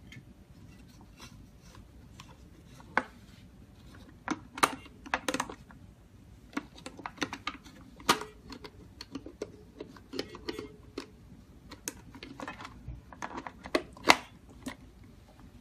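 Irregular clicks, taps and light knocks of a keypad door lock's back plate and fittings being handled and pressed into place on a door, the sharpest click near the end.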